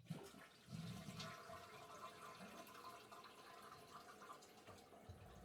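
Toilet flushing: water rushing through the bowl. It starts suddenly, swells about a second in, then runs on steadily.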